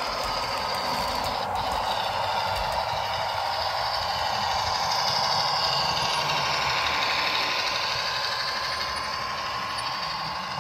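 Realtrack Class 156 model diesel multiple unit running past, its DCC sound decoder playing diesel-engine sound through the model's small speaker over the rattle of its wheels and motor on the track. It grows a little louder about halfway through as it comes closest, then eases off.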